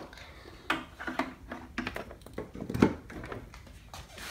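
Scattered light knocks and clicks of hard plastic and glass as a countertop halogen turbo oven's lid is handled, the loudest knock a little before three seconds in.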